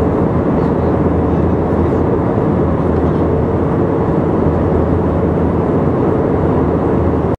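Steady cabin noise of an airliner in flight, heard from inside the passenger cabin: an even rush of air and engine noise with a low hum running through it. It cuts off suddenly at the end.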